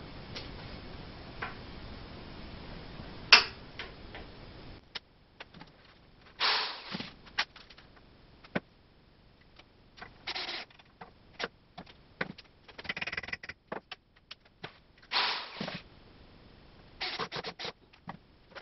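Cordless drill-driver running in short bursts, about five in all, driving screws to fasten small angle brackets into a wooden table frame, with clicks and knocks of handling between. A single sharp knock a few seconds in is the loudest sound.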